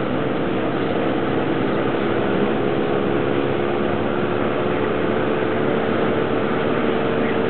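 Car cruising at steady speed on a motorway, heard from inside the cabin: an even engine drone with road and wind noise.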